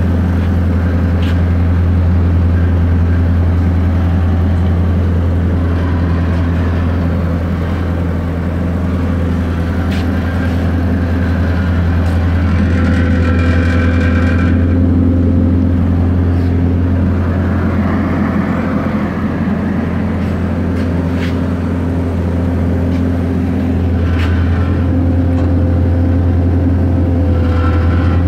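Jungheinrich forklift truck's engine idling steadily, a low even drone, with a few faint clicks.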